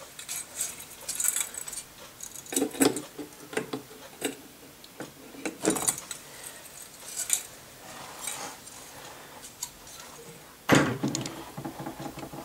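Irregular light metallic clinks and rattles of an aluminium-finned CPU tower heatsink and its mounting hardware being handled, with a louder clatter about eleven seconds in.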